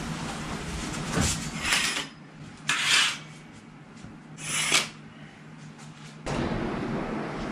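Fabric curtains being pulled open along their rail, in several short swishes over a few seconds.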